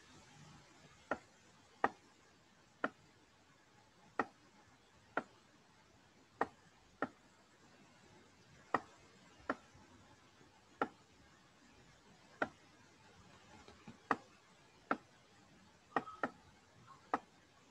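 Computer mouse clicking: single sharp clicks at uneven intervals, roughly one a second, as the button is pressed and released for each brush stroke.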